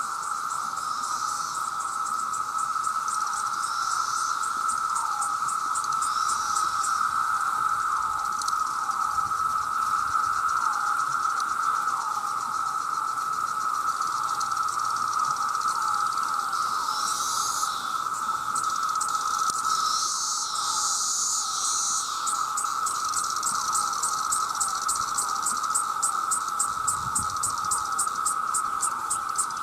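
A dense chorus of cicadas: a continuous high, whining drone with many overlapping calls that each fall slightly in pitch. A faster, higher-pitched rhythmic pulsing of insect calls runs over it for stretches, fading out around the middle and coming back in the second half.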